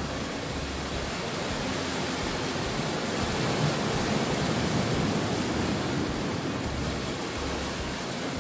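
Sea surf: a steady rushing wash of waves that swells a little in the middle.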